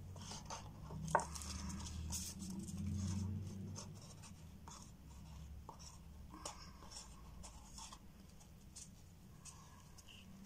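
Small handling sounds of resin-crafting materials on a table: irregular scratching, rustling and light clicks, with one sharp click about a second in. A low hum runs underneath, louder in the first few seconds.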